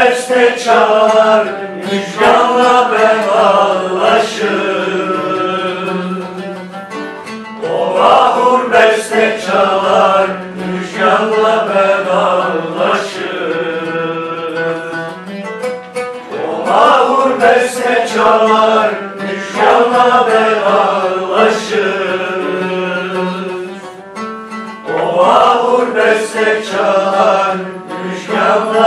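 Live singing of a slow, melismatic song with a plucked string instrument accompanying, in long phrases with short pauses about every eight seconds.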